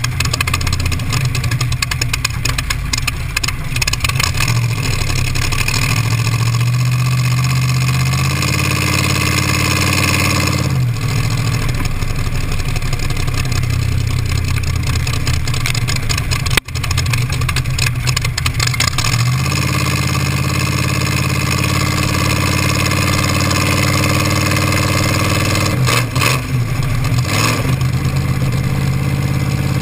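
T-bucket hot rod's engine running at low, steady speed, its pitch stepping up and falling back a few times as the engine speed changes.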